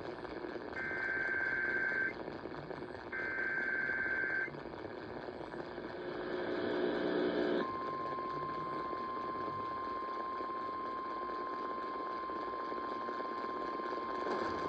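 Emergency Alert System signal over AM radio static: two screeching SAME header data bursts of about a second and a half each, part of the usual set of three. After a brief buzz, the steady single-pitch 1050 Hz weather alert tone starts about halfway through and holds.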